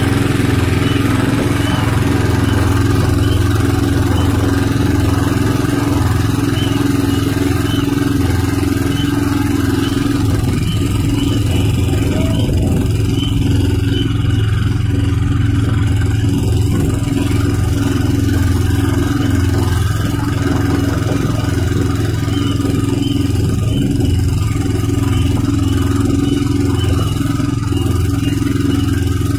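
Small engine of a katinting outrigger boat running at a steady, unchanging speed, a constant drone heard from on board while the boat cruises.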